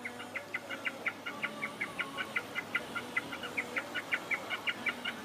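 A bird calling in a rapid, even run of short chirps, about seven a second, over a faint steady background.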